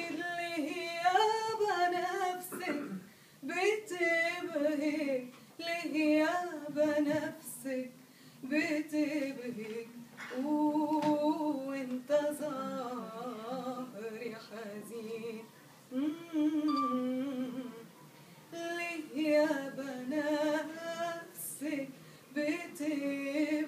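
A woman singing an Arabic song unaccompanied, in phrases of one to three seconds with a wavering, ornamented pitch and short breaks between them.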